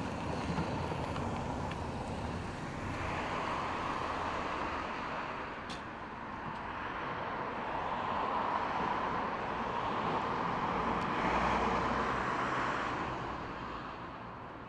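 Road traffic: the steady noise of tyres and engines swells as cars pass. There is a smaller swell a few seconds in and a longer, louder one a little past the middle, which then fades.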